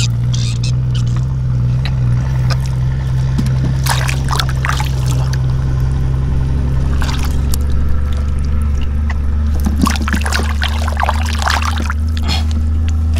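Bare hands digging and scooping through wet mud and shallow water in a trench, with several bursts of splashing and sloshing, the busiest near the end. A steady low hum runs underneath and drops in pitch about halfway through.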